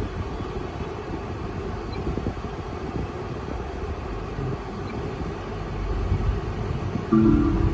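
Steady low rumble of road and wind noise, as from a small car driving. Music starts again near the end.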